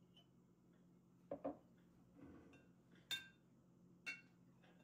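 A metal spoon clinking and tapping against glass mason jars of milk while cream is skimmed off, a few separate strikes. There are two duller knocks about a second and a half in, then sharper clinks near three and four seconds in.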